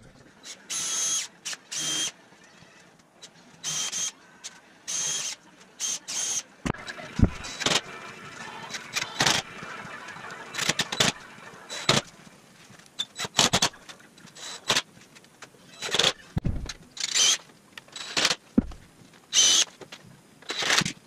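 Cordless drill driving screws into wooden boards, its motor whining in repeated short bursts with a longer run near the middle. A few sharp knocks of wood in between.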